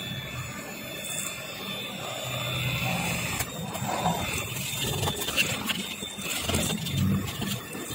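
Small handheld electric mixer running with its beaters churning a large basin of thin batter: a steady motor hum that grows louder from about two seconds in.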